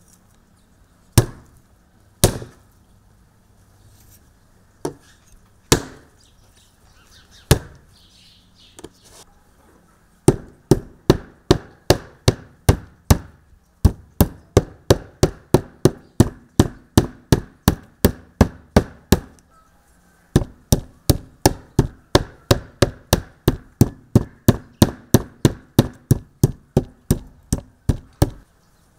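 A meat tenderizer mallet pounds thin beef slices on a wooden cutting board in quick, even strikes, a little over three a second, with two short pauses. Before that, about ten seconds in, come a few separate knocks from a large knife cutting the beef through to the board.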